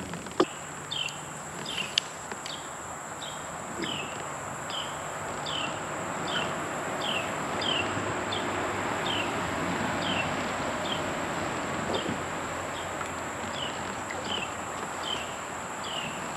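An animal chirping: short falling calls repeated about twice a second, over a steady high insect hum and a soft wash of background noise. Two sharp knocks sound near the start.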